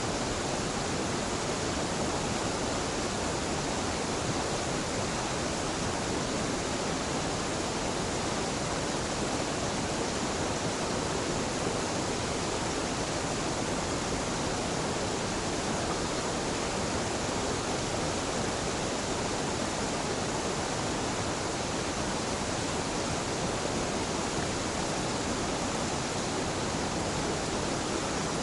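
Waterfall on a mountain stream, water falling and rushing in a steady, unbroken roar.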